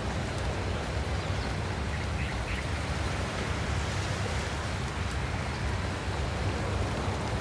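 Steady rushing outdoor noise of wind and surf on a rocky sea shore, with a strong low rumble.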